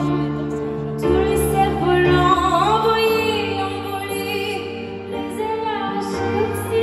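Live concert music: a solo female vocalist sings long, wavering notes into a microphone, amplified over sustained backing chords whose bass note shifts twice.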